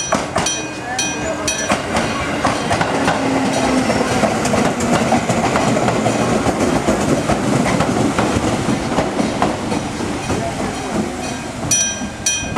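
Fujikyu 6000-series electric train running past over the level crossing, a dense rumbling noise with many wheel clicks. The crossing's electric bell keeps ringing at about three strikes a second, buried under the train at first and standing out clearly again near the end as the train noise eases.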